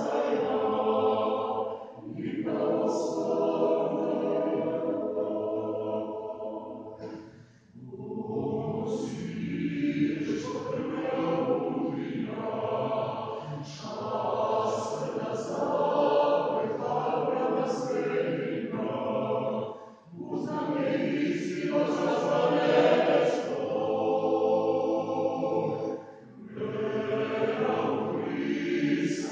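Mixed church choir of men's and women's voices singing a cappella inside a church, in long held phrases with short breaks between them about 2, 7.5, 20 and 26 seconds in.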